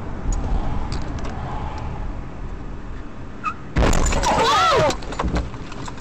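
Road and engine noise of a car driving, heard from inside the car, with a few light clicks. About four seconds in, a loud sudden sound with a wavering pitch lasts about a second.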